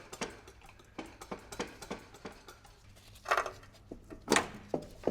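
Hand tools working on bolts under a car: light metallic clicks about three a second, then a scrape about three seconds in and a sharp metal clank a little past four seconds.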